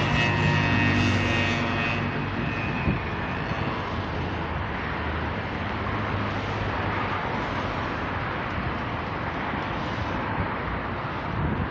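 A droning engine, strongest at first and fading out over the first half, above a steady rushing noise.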